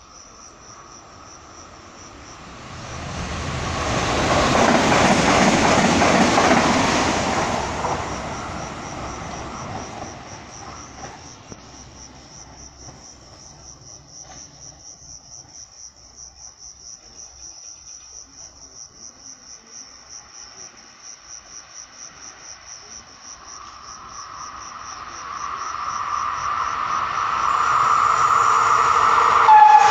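Insects chirping in a steady, high, pulsing trill, with a louder rushing noise that swells and fades a few seconds in. In the last several seconds an approaching Intercity train grows steadily louder, with a steady hum over the rising rumble.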